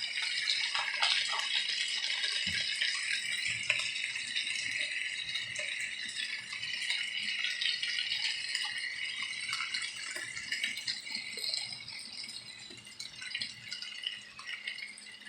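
Stovetop cooking noise: a steady hiss from the pot of heating water and the pan of sautéing pork, with light clicks and knocks as cabbage leaves are put into the water. The hiss fades over the last few seconds.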